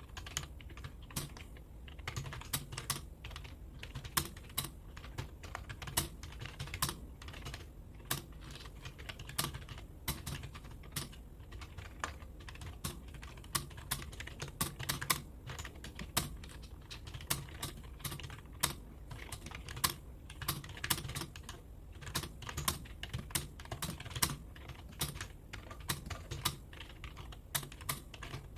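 Rapid, continuous typing on a computer keyboard: a quick, uneven stream of keystroke clicks during a speed-typing test.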